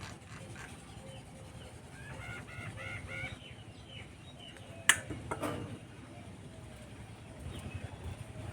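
Birds calling at a rooftop feeding spot, with a quick run of short repeated calls about two seconds in. A sharp click or knock about five seconds in is the loudest sound, followed by a few softer knocks.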